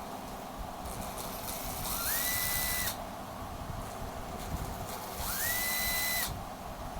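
Cordless drill test-run twice: each time its motor spins up with a quickly rising whine, holds a steady high whine for about a second, then stops when the trigger is released.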